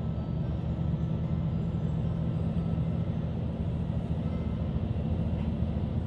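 A vehicle running steadily, a continuous low engine rumble with little change.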